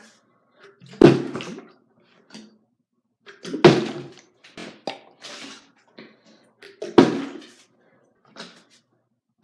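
A plastic water bottle being flipped and landing on a towel-covered floor: three thuds a few seconds apart, each trailing off briefly as the bottle tips over.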